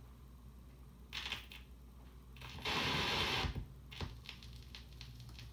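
A vintage transcription turntable's stylus being set down on a spinning LP: a brief scrape, then about a second of loud scratchy noise as the needle meets the record, a sharp click, and faint ticking from the lead-in groove over a low steady hum.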